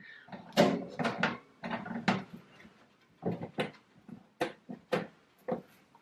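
Clear plastic hamster cage and its wire-grille top being handled and fitted together: a string of irregular short plastic knocks and clatters.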